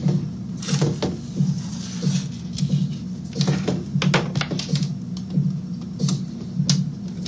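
A background music loop with a low, throbbing pulse about every two-thirds of a second. Over it come sharp clicks and taps of small RC crawler parts, links and a hex driver being handled against each other and the wooden bench, with a quick run of clicks about halfway through.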